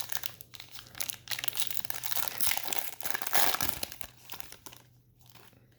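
Crinkling and tearing of a trading card pack's wrapper as it is ripped open and crumpled, dying away in the last second or so.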